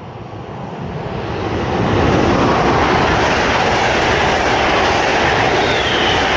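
FlixTrain passenger train running through the station at speed: its rush of wheels and air swells over about two seconds, then holds loud and steady as it passes close by, with a faint high whine near the end.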